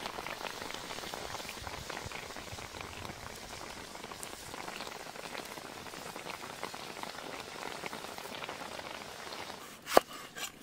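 Fish frying in hot oil, a steady sizzle full of small crackles and pops. Near the end, one sharp knock as a knife cuts through a green tomato onto a board.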